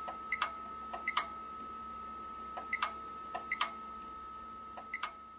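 Sharp mechanical clicks in quick clusters of two or three, about every second, over a steady high-pitched whine and a faint low hum.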